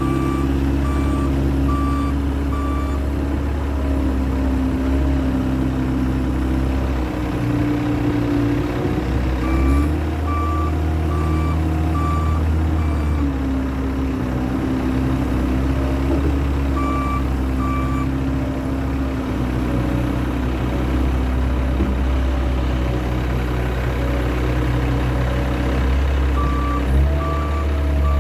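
Case skid steer loader's diesel engine running under changing load, its pitch rising and falling as it works. Its backup alarm beeps in several spells, about one or two beeps a second, each time the machine reverses.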